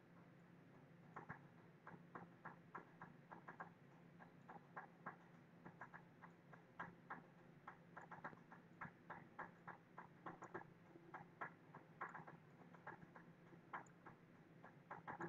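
Faint computer mouse clicks, irregular and often in quick pairs, over a faint steady low hum.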